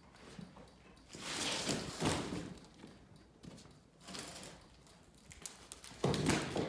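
A few irregular scuffs and knocks with quiet between them, the loudest near the end.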